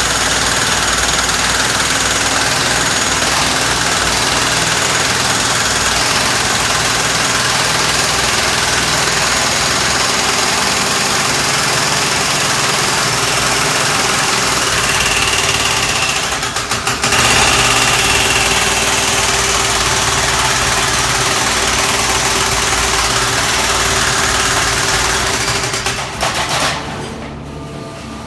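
Brokk 160 demolition robot's hydraulic breaker hammering concrete with a loud, continuous rattle, breaking off briefly about two-thirds in. Near the end the hammering stops and only the machine's quieter running is left.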